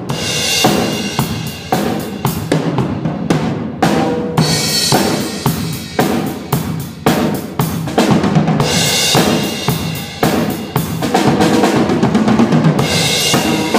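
Live drum kit played during a band sound check: a run of kick, snare and cymbal hits, with held pitched instrument notes sounding under the drums.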